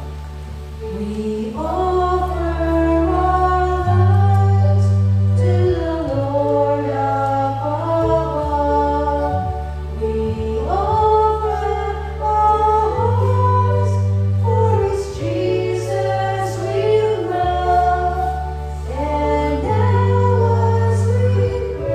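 Choir singing an offertory hymn over keyboard accompaniment, with long held bass notes that change every second or two under the sung melody.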